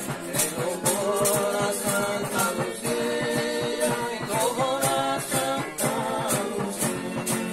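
A folia band of men singing a devotional song together in phrases, accompanied by strummed guitars and the jingles of a hand-held tambourine keeping a steady beat.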